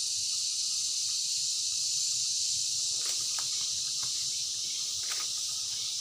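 Steady high-pitched chorus of insects, with a few faint footsteps about halfway through and again near the end.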